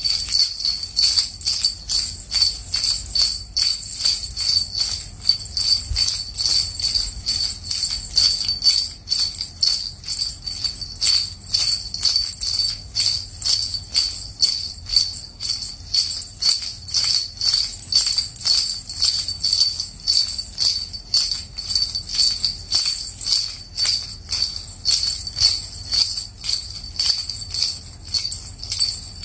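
Small bells shaken gently in a steady, even rhythm: a bright, high jingling with a ringing tone that carries between strokes.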